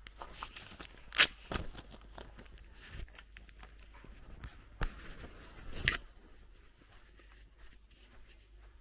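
Footsteps of a person walking on grass and twigs, with rustling and a few sharp crackles, the sharpest about a second in. It grows quieter after about six seconds.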